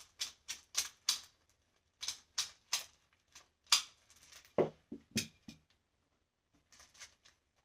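Cartridges being worked one at a time through a magazine's feed lips, each round giving a sharp metallic click, about three a second at first and then more slowly. Around the middle come a few duller knocks as rounds or the magazine are handled.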